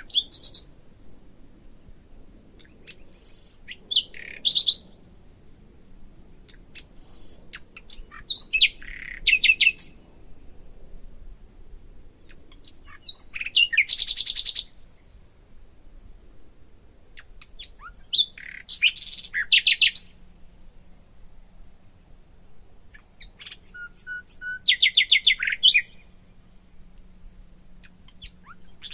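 A songbird singing: short phrases of high, rapid chirps and trills, about one phrase every four to five seconds.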